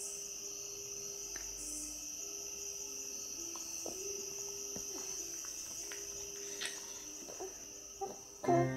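Quiet room tone with a faint, steady high-pitched whine and a few soft clicks. Piano music starts right at the end.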